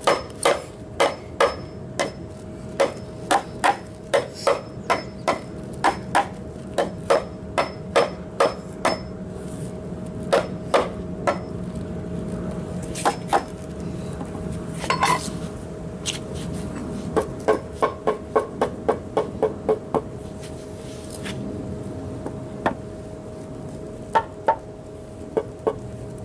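Claw hammer striking a wooden block to seat it in its notch in a pressure-treated lumber frame. The blows come steadily, about two or three a second, for the first ten seconds or so, then scattered, with a quicker run of blows about two-thirds of the way through.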